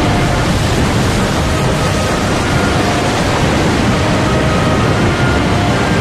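Heavy, storm-tossed sea and wind: a loud, steady rush of noise without a break, with a few faint held tones underneath.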